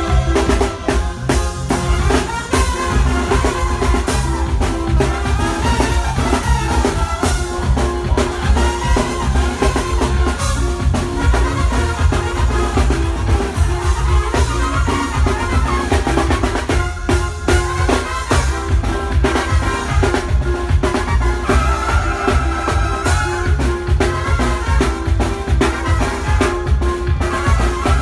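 Live brass band playing, trumpets carrying the melody over drums and a steady, repeating bass line.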